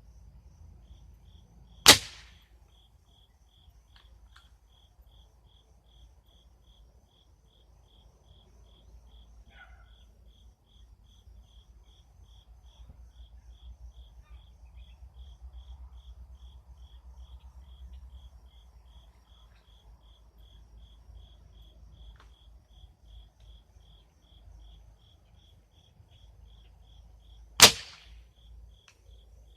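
Two air rifle shots, each a single sharp crack, one about two seconds in and the other near the end. Crickets chirp steadily throughout, about two chirps a second.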